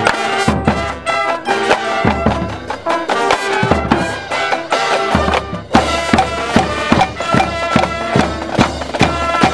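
Street band of horns and drums playing: held brass-like notes over a drumbeat that settles into a steady, even pulse in the second half.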